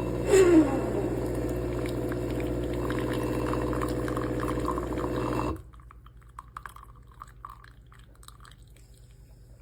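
Gretess capsule espresso machine brewing on its larger lungo setting: the pump runs with a steady hum while coffee pours into the cup, then stops abruptly about five and a half seconds in, followed by a few faint drips.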